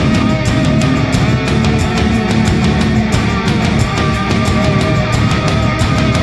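Loud heavy rock music with distorted guitar and a driving beat.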